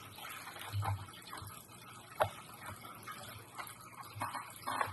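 Foam 3D puzzle pieces being handled and pressed together: a faint rubbing hiss, a few soft knocks and one sharp click about two seconds in.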